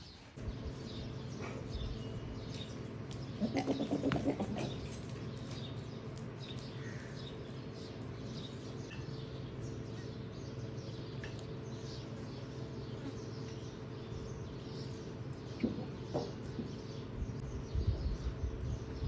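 Farmyard sound: small birds chirping over a steady low hum, with one louder animal call about four seconds in and some low knocks near the end.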